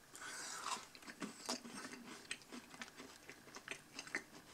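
A person chewing a mouthful of soft raspberry cheesecake cookie: faint, irregular small mouth clicks, after a short hiss at the start.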